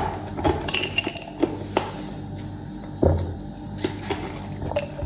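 A thin plastic water bottle being handled and drunk from: irregular crackles and clicks of the plastic, with the strongest knock about three seconds in, over a faint steady hum.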